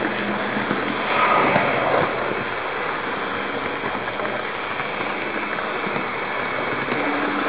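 Model train running along its track, heard from a camera riding aboard: a steady rattling rumble of wheels on the rails, swelling louder for about a second near the start.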